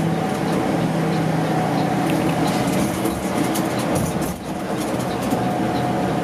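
Mercedes-Benz OH 1626 coach's diesel engine drone with tyre and road noise, heard inside the cabin while cruising on a highway. A steady low hum with a constant pitched note over the rumble.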